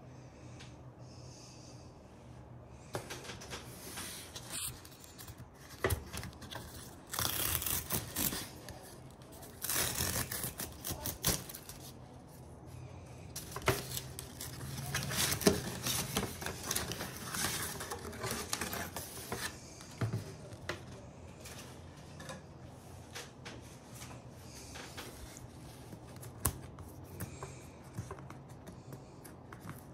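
Cardboard and paper packaging of a watch box handled by hand: rustling, sliding and scraping of card, with frequent sharp clicks and taps. It starts a few seconds in, is busiest through the first two-thirds, then eases to lighter handling with occasional taps.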